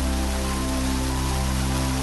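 Background music holding sustained low notes over the steady rush of falling water from a waterfall.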